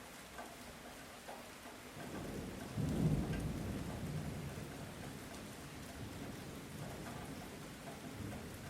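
Light rain falling steadily with scattered drips. About two seconds in, a low roll of distant thunder builds, peaks a second later and slowly fades away.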